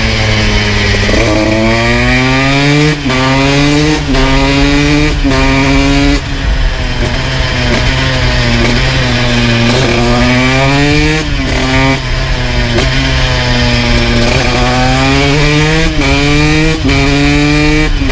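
2002 Honda CR125 two-stroke engine with a full FMF exhaust, ridden hard: the pitch climbs again and again, each climb cut off abruptly by a gear change. It eases off and drops in the middle, then pulls up through the gears again.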